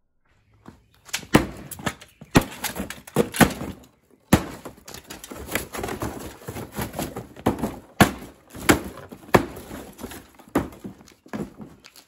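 Hammer blows on the crushed metal motor housing of a ceiling fan and its cardboard box on concrete: a series of sharp impacts, roughly one or two a second, starting about a second in.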